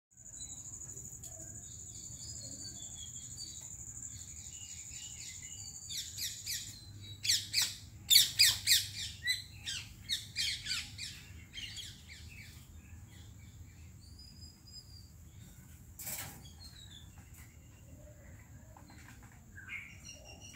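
Birds calling: a run of loud, rapid, repeated squawking calls from about six to twelve seconds in, over a steady high-pitched buzz that is strongest in the first six seconds.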